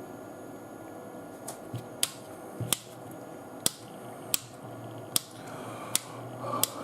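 Sharp clicks of a switch being flicked on and off repeatedly, roughly once a second, power-cycling a repaired Chieftec CFT-560 ATX power supply that keeps running normally. A steady hum runs underneath.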